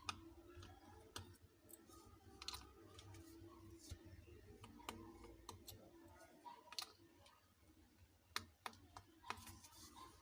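Faint, scattered small clicks and taps, about eight, as a smartphone's internal parts and connectors are handled and unclipped during disassembly.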